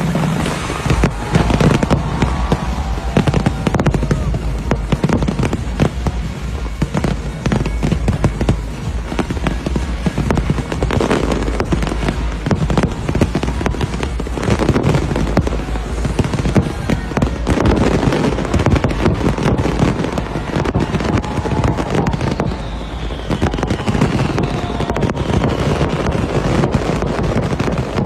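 Fireworks going off continuously: a dense run of rapid bangs and crackles over a deep rumble, with music and crowd voices underneath.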